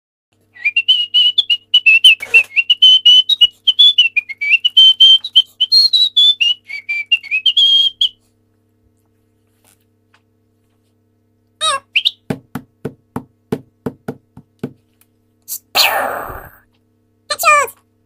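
A high, wavering whistled tune for about seven and a half seconds, then a pause. Later come a brief squeaky, sped-up 'hamster' voice, a quick run of about ten sharp clicks, a short hissing burst, and more squeaky sped-up voice near the end.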